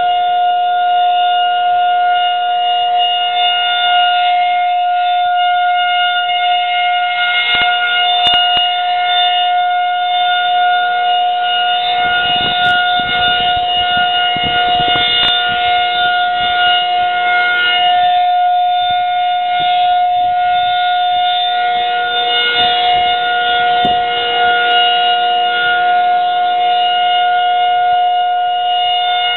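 Federal Signal 2001-SRN electromechanical outdoor warning siren sounding its steady 'Alert' signal: one loud held pitch with overtones, not rising or falling.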